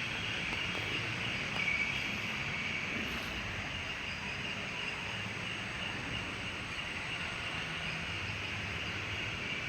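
Steady chorus of night insects, a continuous high-pitched drone, over a low background rumble.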